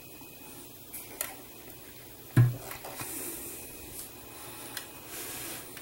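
Handling the rear body section of a 1:8 scale Aston Martin DB5 model, black plastic parts on a metal body shell, as it is turned around: one sharp knock a little over two seconds in, a few light clicks, and stretches of rubbing and scraping.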